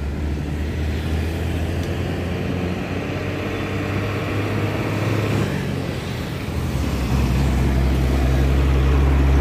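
A TVS Apache RTR 160's single-cylinder engine running steadily, a low even hum, getting a little louder about seven seconds in.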